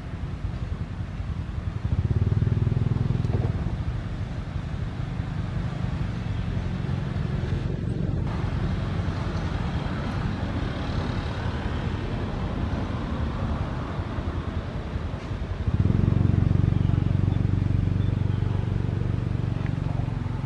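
A motor vehicle's engine running, a low hum that swells for a second or two about two seconds in and again over the last four or five seconds.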